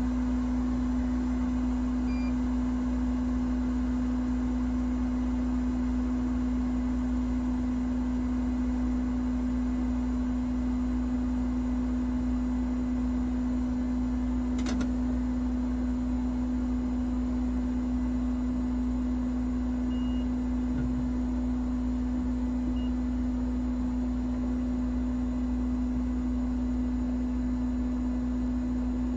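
Steady electrical hum with one constant low tone, from repair-bench equipment; a single short click about halfway through.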